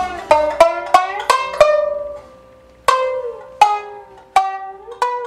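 Background music: a plucked string instrument plays a melody of single ringing notes, a quick run of six notes, a short pause about two seconds in, then slower notes.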